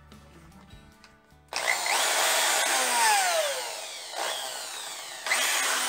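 DeWalt corded drill switched on about a second and a half in, then let go so that its motor whine falls away as it spins down. It is triggered twice more near the end, each time surging and then dying off in a falling whine. It is running through a homemade two-wire extension cord and shows the cord works.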